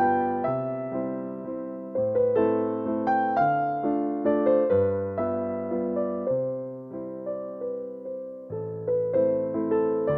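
Background music: a gentle piano melody with bass notes, each note struck and fading.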